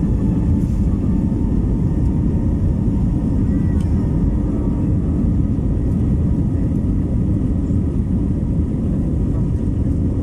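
Jet airliner cabin noise as the aircraft rolls on the ground before take-off: a steady low rumble of engines and wheels at an even level.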